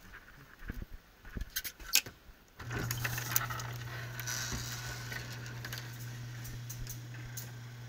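A few light clicks, then an electric garage door opener starts about a third of the way in: a steady motor hum as the sectional door rolls up its track.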